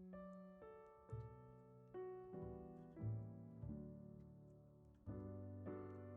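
Quiet solo piano background music: slow chords, a new one struck every second or so, each ringing and fading away.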